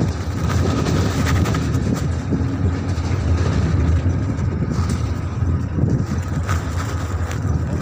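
A truck driving along a rough dirt road, heard from its open back: a steady low engine rumble and road noise, with a few short knocks.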